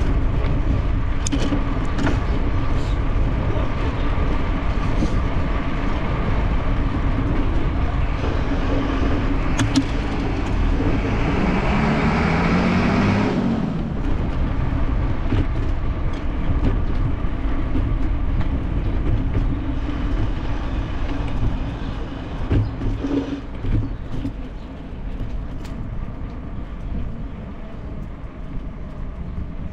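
Steady rumble of wind and road noise on the microphone of a camera riding on a bicycle. About halfway through, a motor vehicle goes by close for a few seconds, its engine rising in pitch, then fades.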